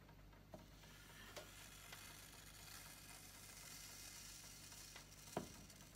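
Very faint trickle and hiss of egg custard being poured from a plastic jug into a pie crust in a hot oven, with a few light clicks, the sharpest about five seconds in.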